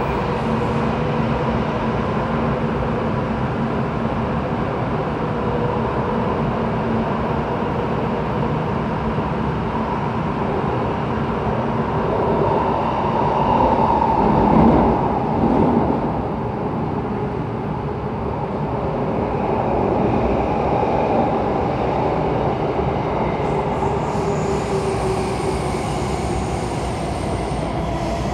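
Bombardier C951 metro train running, heard from inside the car: a steady rumble of wheels and traction gear that swells louder about halfway through. Near the end a high thin whine appears and the motor tone starts to fall as the train begins to slow.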